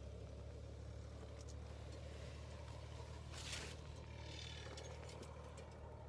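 A steady low hum, with a brief rustle about three and a half seconds in.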